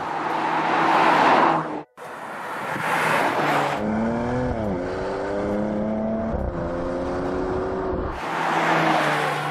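2020 Porsche Macan Turbo's 2.9-litre twin-turbo V6 driving past, then running under acceleration, its engine note climbing and dropping suddenly at a gearshift. A second pass-by swell comes near the end.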